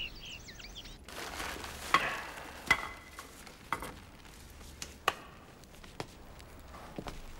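A fireplace being tended: sharp knocks and clinks of logs and iron fire tools, about one a second, one of them with a brief metallic ring. Birds chirp briefly at the very start.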